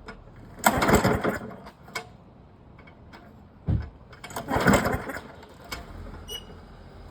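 Pull-starting a 1990s Poulan Pro lawn mower: two rasping pulls of the recoil starter, each about a second long, the engine turning over without catching.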